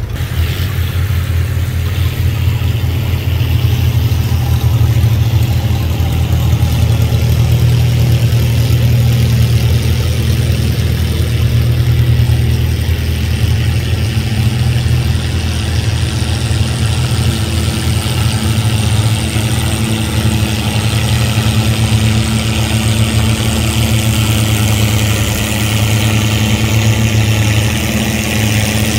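Antique farm tractor engine running steadily and loud, picking up slightly just after the start.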